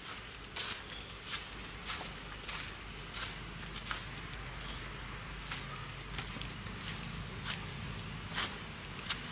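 Insects droning in the forest: one steady, high-pitched whine that never changes, with faint footsteps on the dirt path at a walking pace.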